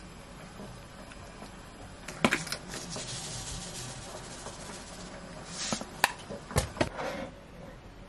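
Utensils click against a dish, then sesame seeds patter softly for a couple of seconds as they are sprinkled by hand over stir-fried pork in a ceramic dish. Several sharp knocks follow about six seconds in.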